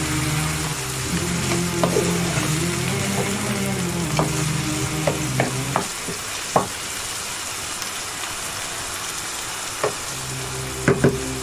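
Mixed vegetables (peas, carrots and corn) sizzling in butter in a frying pan, stirred with a wooden spoon that scrapes through them and knocks against the pan several times.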